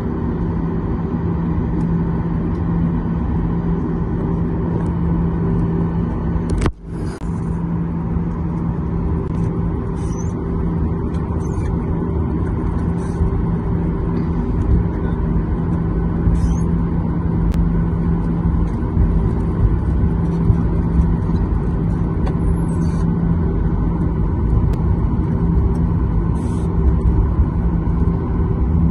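Airliner's jet engines heard from inside the cabin while taxiing: a steady drone with a low hum, briefly dropping out about seven seconds in and growing a little louder in the last several seconds.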